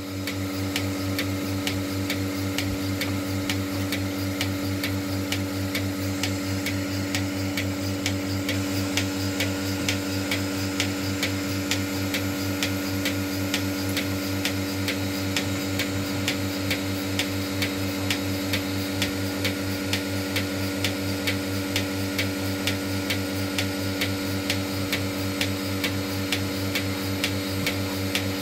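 Bucket milking machine running while milking a cow: a steady hum from the vacuum pump with the regular clicking of the pulsator throughout.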